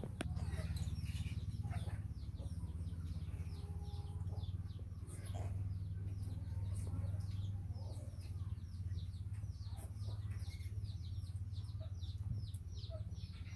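Birds chirping in the background: many short, high, falling chirps in quick succession, over a steady low hum.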